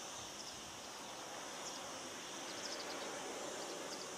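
Quiet outdoor ambience: a steady background hiss with faint high chirps here and there, thickest around the middle.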